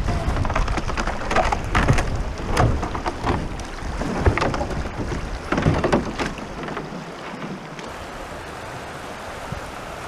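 Fast, shallow river water rushing and splashing around a moving canoe, with wind buffeting the microphone in gusts. About eight seconds in this gives way to a quieter, even rush of flowing river water.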